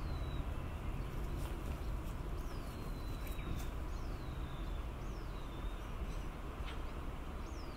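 Outdoor ambience with a bird calling: a high whistled note sliding down in pitch, repeated every second or so, over a steady low rumble.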